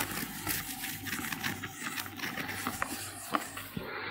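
Whiteboard eraser rubbed over a whiteboard, wiping off marker writing: a dry rubbing noise with scattered small taps.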